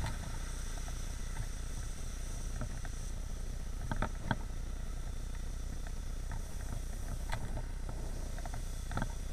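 Steady low rumble of wind and road noise picked up by a camera on a moving bicycle, with a few sharp clicks, the loudest two about four seconds in and others near the end.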